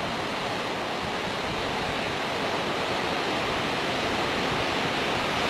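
Sea waves on the shore, heard as a steady rushing noise that grows slightly louder toward the end.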